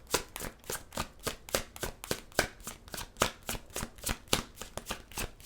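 A tarot deck being shuffled by hand: cards clicking against one another in a quick, even run of about four or five clicks a second.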